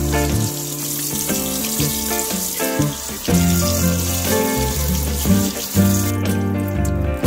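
Kitchen tap running into a stainless steel sink as dyed fabric and yarn are rinsed under the stream to wash out excess indigo dye; the water stops about six seconds in. Background music plays throughout.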